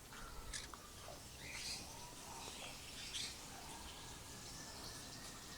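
Small birds chirping faintly: scattered short, high calls, with a thin drawn-out whistle through the second half.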